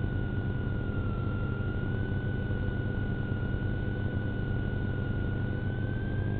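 Steady low rumble of a police car heard from its dashcam, with a constant high-pitched whine that wavers slightly in pitch throughout.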